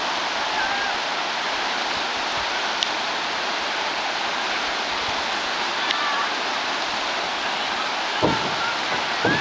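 River water rushing steadily over rocks through shallow rapids.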